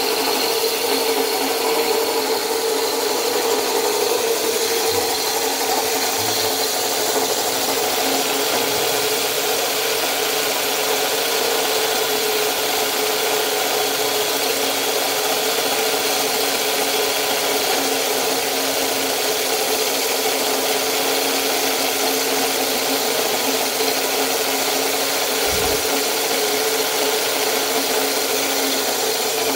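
Handheld electric drill running steadily with a hole-saw core bit grinding into a granite slab: a steady motor whine over gritty stone-scraping noise.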